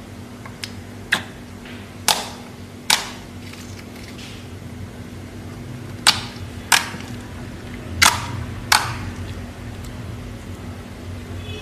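Slime being played with by hand, making about eight sharp, crisp pops at irregular intervals as air pockets in it burst.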